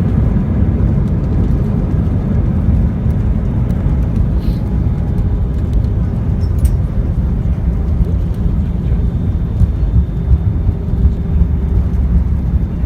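Steady low rumble of an Airbus A320 airliner on its landing run, with a faint steady hum that comes in about halfway through.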